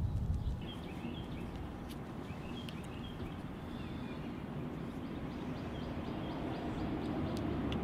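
Outdoor ambience: a steady low rumble with small birds chirping faintly, and a quick run of evenly spaced high ticks in the later part.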